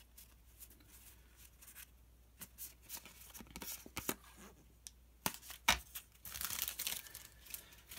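Pokémon trading cards and their packaging being handled: a few faint clicks and rustles, then louder, denser crinkling and rustling about five seconds in.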